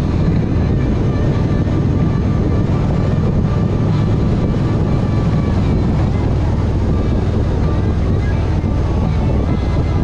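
A vehicle travelling at a steady speed: a continuous engine drone and low rumble, with wind buffeting the microphone.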